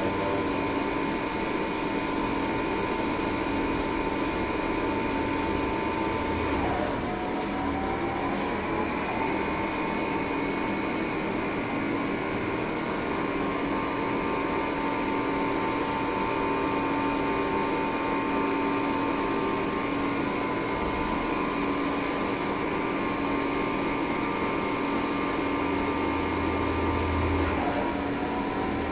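CNC lathe running a machining program: a steady machine whine made of several tones at once. About seven seconds in and again near the end the pitch drops sharply and then climbs back up over a second or two, as the spindle speed changes.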